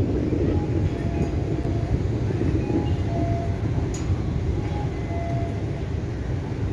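Steady low rumble of wind buffeting the microphone, with faint short high tones now and then.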